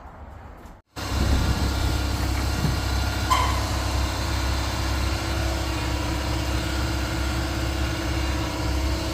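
A machine running steadily with a low hum, starting abruptly about a second in after a brief cut.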